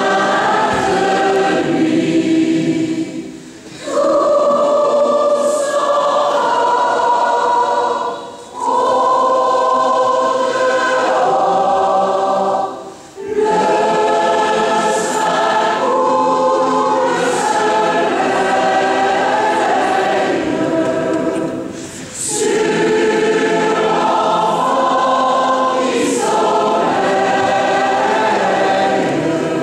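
Choir singing in a church, in sustained phrases broken by four short pauses for breath.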